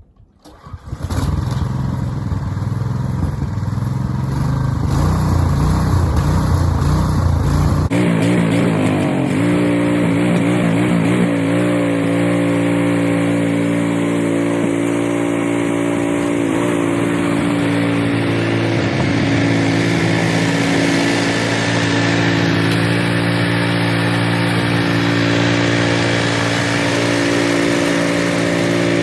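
Cub Cadet 3X 30 HD three-stage snowblower's gas engine running steadily. It starts about a second in. About eight seconds in the sound changes abruptly to a smoother, steady engine tone whose pitch wavers briefly before settling.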